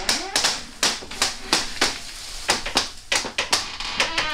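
An irregular series of sharp taps or clicks, a few a second.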